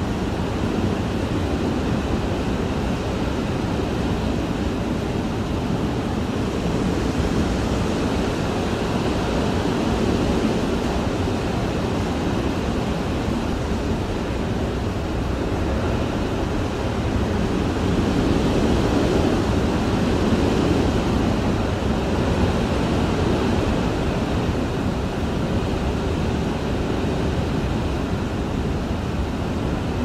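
Hurricane wind blowing and gusting against a house, heard from inside: a steady, deep rushing noise that swells in gusts, loudest about 18 to 21 seconds in.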